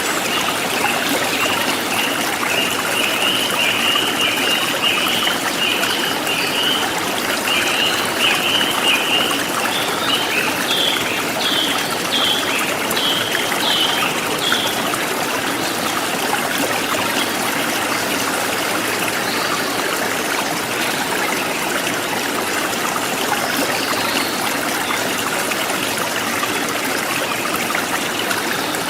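Forest stream flowing steadily, with a small bird chirping in a quick run of short notes through the first half.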